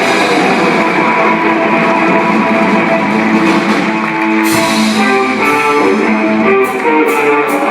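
Live band music led by an electric guitar playing held, sustained melody notes over a backing, with drum cymbals struck several times near the end.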